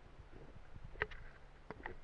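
Faint handling noise: a few short clicks and knocks over a low rumble, the sharpest about a second in and two softer ones near the end.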